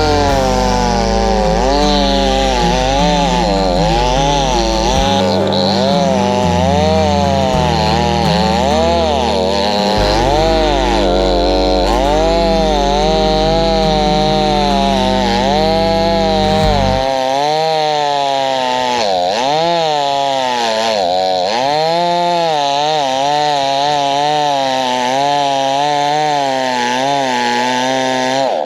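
Temu chainsaw cutting into a large pine trunk. The motor's pitch keeps rising and dipping as it bogs down under the load, the saw working at the limit of what it can do.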